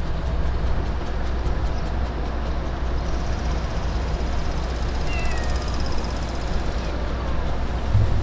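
Steady low rumble of outdoor background noise, with a brief faint high chirp about five seconds in.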